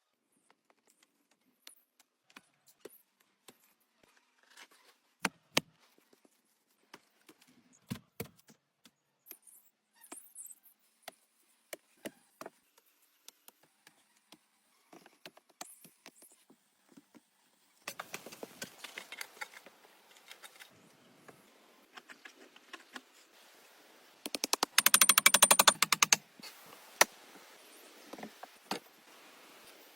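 Scattered sharp knocks and cracks of wood being handled, then a loud, rapid rattle of clicks lasting about two seconds, about three-quarters of the way through.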